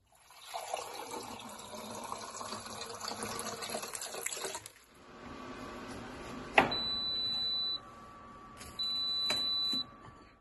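Siroca electric rice cooker's control panel: a button click about six and a half seconds in, then two long, high electronic beeps, each about a second long, with a faint steady tone under them. Before that come about four seconds of water-like noise.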